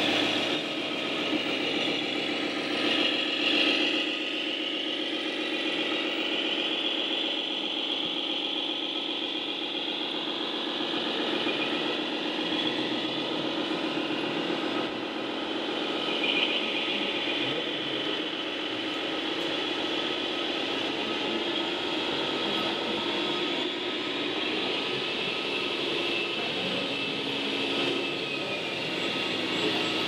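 Radio-controlled model tipper truck running steadily: a continuous, even mechanical engine-like hum.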